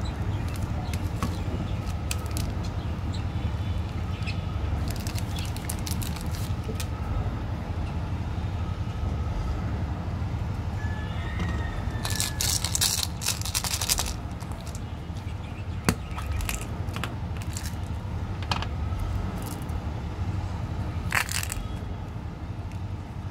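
Scattered crinkling and clicking as a foil-wrapped candy bar and a red plastic toy ball full of candies are handled and opened, with the loudest sharp click near the end. A steady low rumble runs underneath.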